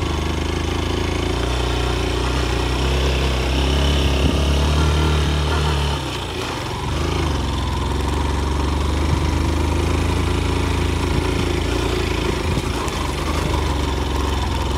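Single-cylinder motorcycle engine running steadily under way, with rushing noise over it; the engine note drops for under a second about six seconds in, then picks up again.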